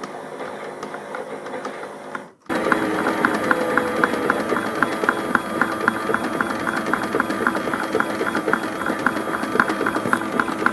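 Battery-powered Theo Klein Miele Novotronic toy washing machine running its wash cycle: a small motor turning the drum, with a rapid, regular clicking. The sound cuts out for a moment about two seconds in and comes back louder.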